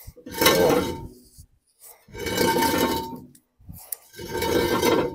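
Truck brake drum being worked onto the hub over the brake shoes: three scraping strokes of metal rubbing on metal, about two seconds apart, each with a faint ringing note.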